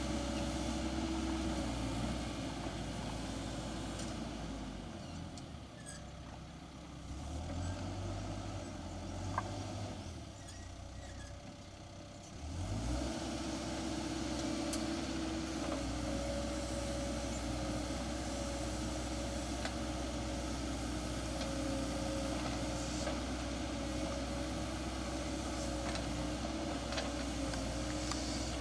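Excavator's diesel engine running steadily, easing off to a lower, quieter note for several seconds in the middle, then revving back up about twelve seconds in and holding steady. A single knock sounds during the quieter stretch.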